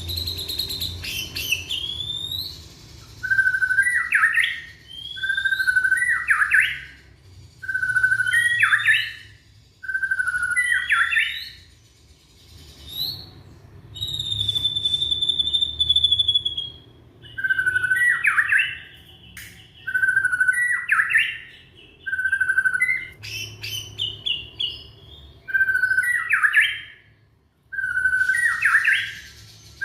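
Young white-rumped shama singing: a short whistled phrase repeated about every two seconds, each opening on a steady lower note that jumps to a higher rising one. About halfway through the bird holds one long, steady high whistle instead.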